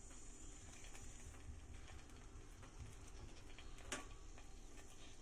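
Faint sizzle of a spice paste heating in oil in a wok, with a single light click about four seconds in.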